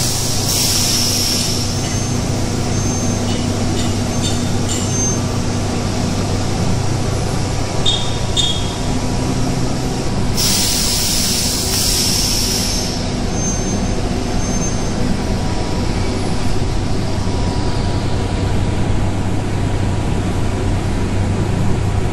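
Veneer press dryer and its feed conveyor running with a steady machine hum and rumble. Loud bursts of hissing come at the start and again about ten seconds in, each lasting a couple of seconds.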